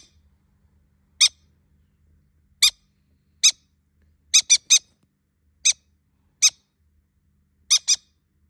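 Green-cheeked conure giving short, sharp, high-pitched chirps, about ten of them at uneven intervals, with a quick run of three in the middle and a close pair near the end.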